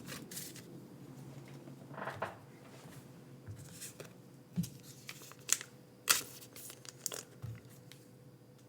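Pokémon trading cards and plastic card sleeves being handled at a desk: faint rustling with about half a dozen soft, scattered clicks.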